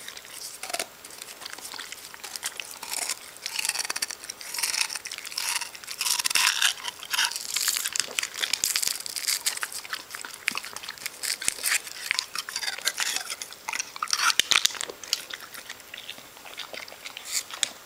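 Staffordshire bull terrier licking and biting at an icypole: fast, irregular wet smacking, lapping and crunching of the ice, busiest in the middle stretch.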